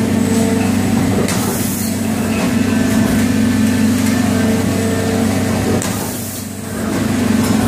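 Injection moulding machine running an unscrewing cap mould, its drive giving a steady hum. Twice, about a second and a half in and again about six seconds in, a short hiss cuts through.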